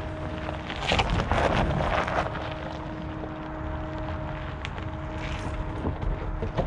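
2022 Chevrolet Silverado ZR2's 6.2-litre V8 pulling the truck slowly up a rocky trail in four-wheel-drive low, first gear, with a steady low rumble and a steady whine. Tyres crunch over gravel and rocks, loudest about one to two seconds in, and wind buffets the microphone.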